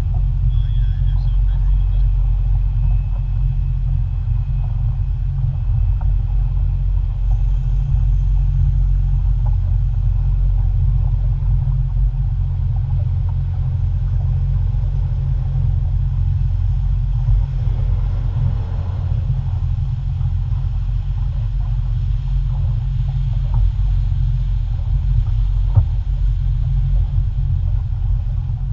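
Steady low rumble of a motorboat under way at slow cruising speed, engine and wind noise on the bow together, with a single faint click near the end.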